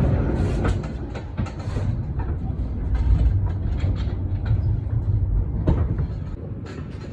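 Volvo heavy truck on the move: a steady low engine and road rumble, with irregular knocks and rattles as it rolls over the road surface. The rumble is louder at the start and eases after about a second.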